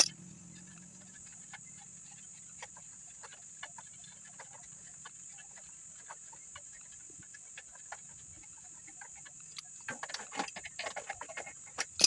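Faint small metallic clicks and taps as the rear axle nut of an Atlas Goldline bicycle is turned loose by hand, over a steady high hiss. A brief louder run of knocks comes near the end.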